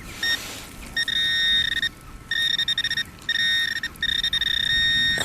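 Metal-detecting pinpointer buzzing on a metal target in the dug hole: a fixed high-pitched electronic tone sounding in four long stretches of about a second each, with short breaks between them. It sounds as the probe is swept near the find, showing where the target lies in the soil.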